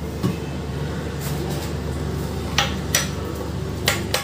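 A few light clicks and knocks of kitchen utensils and dishes being handled, over a steady low hum.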